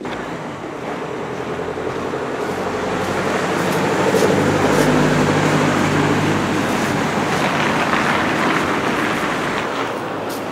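Street traffic: a steady roar of passing road vehicles, swelling as one engine passes close about halfway through and then easing off.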